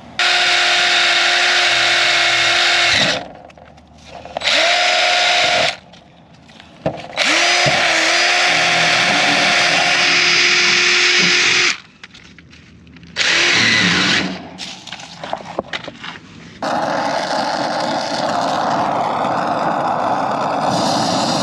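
Cordless drill spinning a brass wire cup brush against a copper refrigerant line, run in four bursts of a few seconds each with a steady motor whine that winds up and down, cleaning the pipe for brazing. About seventeen seconds in, a brazing torch flame starts with a steady rushing hiss.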